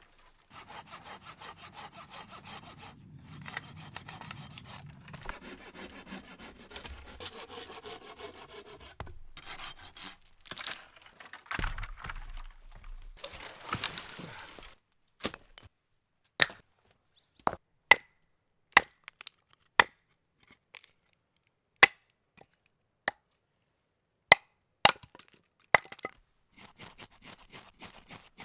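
Hand saw cutting through wood for firewood in rapid back-and-forth strokes for about fifteen seconds, then a string of sharp, separate wooden cracks.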